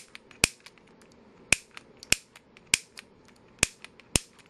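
Piezo gas-grill ignitor being fired again and again, each press a sharp snap of its spring hammer striking the crystal and sending a spark into a multimeter test lead. Six snaps come half a second to a second apart, with fainter clicks between them.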